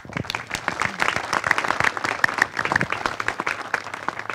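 Audience applauding, starting all at once and thinning slightly near the end.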